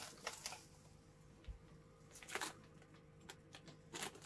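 Faint rustling of a plastic bag and a few small clicks and knocks as it is handled and opened, with quiet room tone between.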